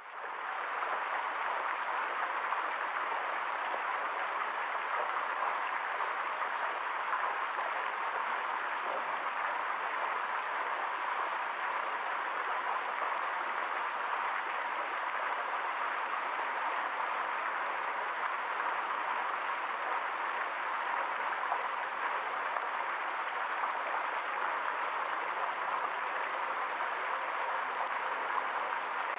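Fountain jets splashing steadily into a stone basin, an even, unbroken rush of falling water that fades in at the very start.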